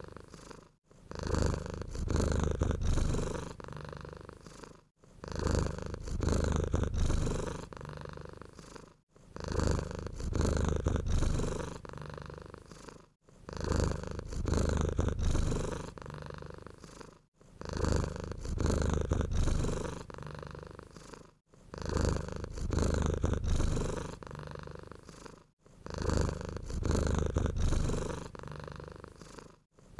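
Domestic cat purring in a steady low rumble. It goes in cycles of about four seconds, each swelling and then fading before a brief pause, about seven times.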